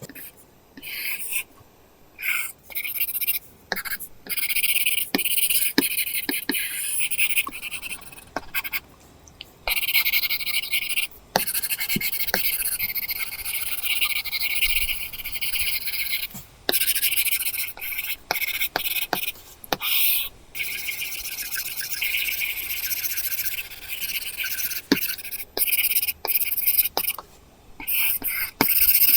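Apple Pencil tip scratching across a paper-texture screen protector on an iPad Pro, in strokes of varying length with short pauses between them, and light taps of the pencil tip on the screen.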